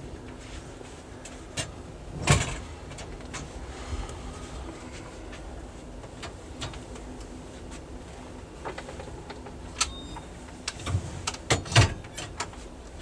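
Inside a moving passenger train car: the steady low rumble and hum of the ride, broken by scattered sharp knocks and rattles. The loudest knock comes about two seconds in, and a cluster of them comes near the end.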